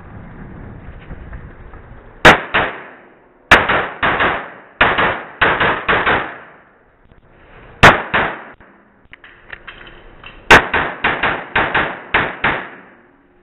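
Springfield XDm .40 S&W pistol firing in several fast strings of shots, with pauses between the strings. Each shot rings off the walls of an indoor range.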